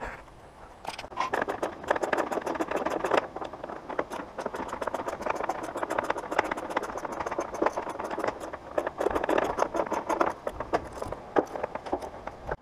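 Hand tools working metal boat fittings, a rapid run of clicking and rattling that starts about a second in and stops near the end.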